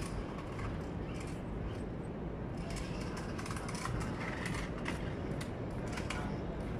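Outdoor city background: a steady low rumble, with a run of faint clicks and scuffs on concrete from about halfway through.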